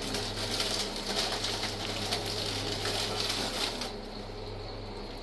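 Plastic shopping bags rustling and crinkling as goods are handled on a shop counter, stopping about four seconds in, over a steady low hum.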